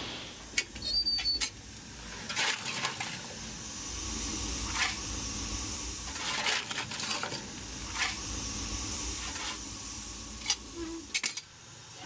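Scattered metallic clanks and knocks around a narrow-gauge steam locomotive, over a faint steady hiss of steam, with a brief squeak about a second in.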